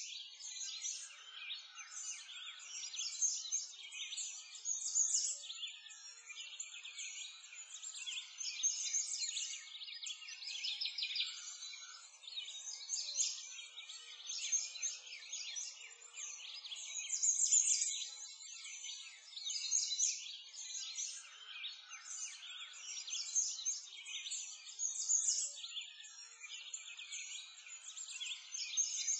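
Dense chorus of many small birds chirping at once, continuous and unbroken.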